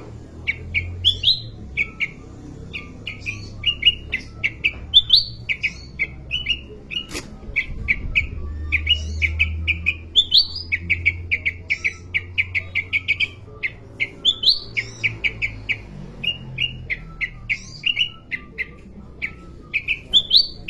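A kutilang emas (a bulbul kept as a songbird) singing: a rapid run of short, clear chirps, broken now and then by quick rising notes, carrying on without pause. A low hum sits underneath, and there is a single sharp click about seven seconds in.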